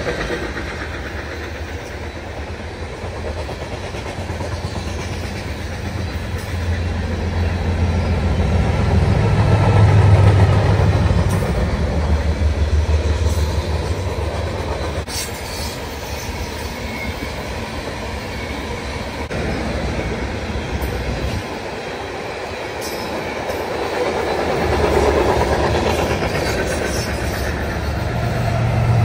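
BNSF coal hopper cars rolling past: a steady rumble of steel wheels on rail with clickety-clack, swelling and easing as cars go by, and a few brief sharp noises. Near the end a low drone grows as a Canadian Pacific diesel locomotive in the train approaches.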